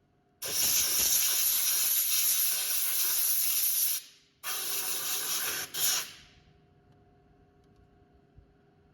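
Compressed-air blow gun hissing in blasts: one long blast of about three and a half seconds, then a shorter one and a brief final puff, blowing dust out of a graphics card.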